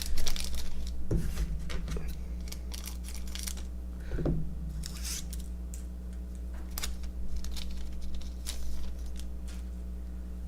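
Baseball cards and their pack wrappers being handled: a run of short rustles, snips and clicks, with two soft thumps about one and four seconds in.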